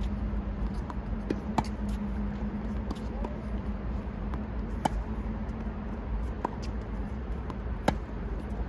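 Tennis ball struck by rackets in a forehand rally on a hard court: sharp pops, the three loudest about three seconds apart, with fainter hits between them. A steady low hum and rumble run underneath.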